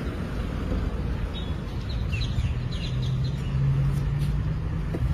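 Outdoor parking-lot ambience: a vehicle engine hum that slowly rises in pitch over the second half, with a few short bird chirps near the middle.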